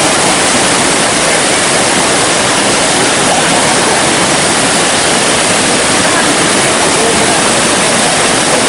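Athirappilly Falls, a large waterfall, pouring over rock ledges into its plunge pool: a loud, steady rush of falling water.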